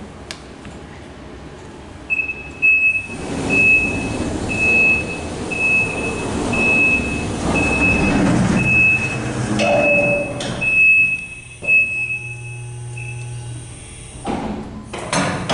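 Hydraulic freight elevator's warning beeper sounding about once a second while its doors and gate run with a long rushing, rattling noise; a low steady hum follows, then a loud clatter near the end.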